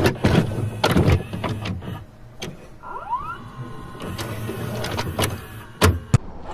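Clicks and knocks of hands and tools working on metal car parts, with a short rising squeak about three seconds in and two sharper knocks near the end.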